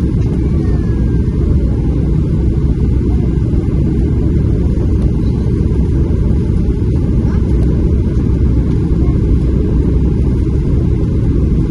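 Steady low rumble of engine and airflow noise inside the cabin of a Boeing 737-700 on approach, heard from a window seat.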